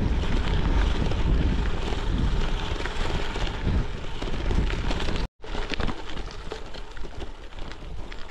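Wind buffeting the microphone on a gravel bike riding over a rough track, with the crunch and rattle of the tyres on gravel. The sound cuts out for a moment about five seconds in; after that the wind rumble is weaker and the gravel crackle stands out.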